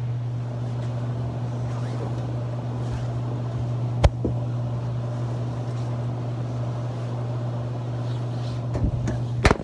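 Top-loading washing machine running with a steady low hum while clothes are loaded into it. A sharp knock comes about four seconds in, and a few knocks near the end.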